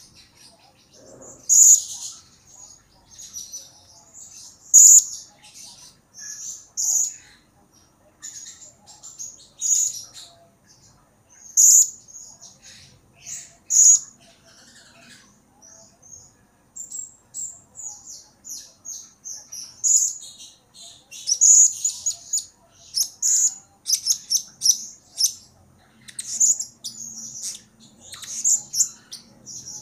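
Blue-crowned hanging parrot (serindit) calling with short, shrill, very high-pitched chirps, singly every second or two at first, then in a rapid run of calls over the last third. The bird is in full, persistent voice (gacor), the kind of calling used as a lure to make other serindit answer.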